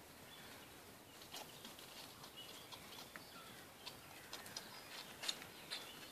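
Faint scattered taps and clicks of Alaskan Malamute dogs and puppies moving about on a patio mat, with a few short high chirps; the sharpest click comes about five seconds in.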